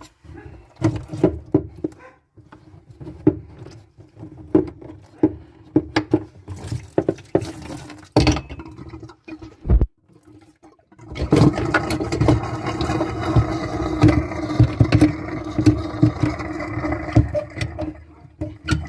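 Metal tools clinking, knocking and scraping on a plumbing angle stop valve and its fittings, with one heavy thump about ten seconds in. After that comes a steady rushing noise for about seven seconds.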